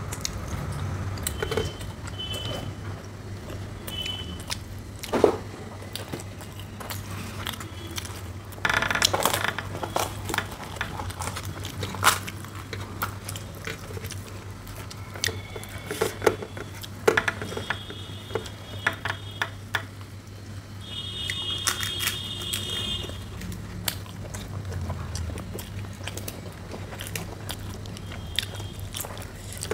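Crispy fried puris being torn apart by hand and chewed close to the microphone: scattered crackles, crunches and wet mouth clicks at irregular moments. A low steady hum runs underneath.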